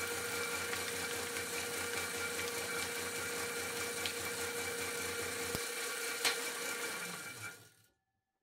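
Homemade plastic shredder running steadily, driven by a half-horsepower electric motor through a bicycle chain and worm-gear reducer, with a constant hum and whine as it chews up a plastic bottle. There are a couple of sharp clicks a little after the middle. The machine winds down and stops shortly before the end.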